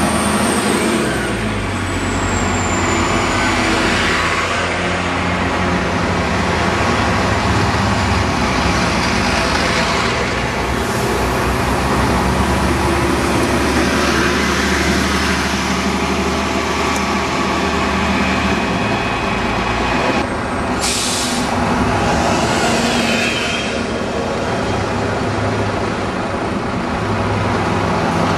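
Diesel buses running at a bus stop, engines idling and pulling away close by. A short sharp hiss of air brakes comes about three-quarters of the way through.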